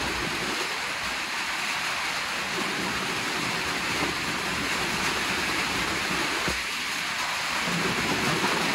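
Steady hiss of rain falling on a sheet-metal shed.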